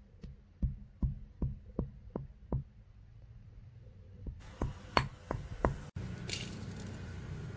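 Granite pestle pounding whole nutmeg in a granite mortar, knocking about two to three times a second, with a short pause before a few more strikes. Just before the end the knocking cuts off suddenly to a steady low background noise.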